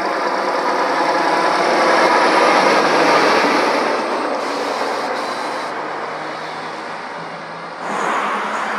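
Lorry passing on the road, its engine and tyre noise swelling to a peak two to three seconds in and then fading away. Near the end another vehicle comes up loudly.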